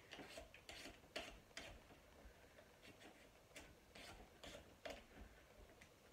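A hand vegetable peeler scraping the skin off a butternut squash in short, faint strokes at irregular intervals.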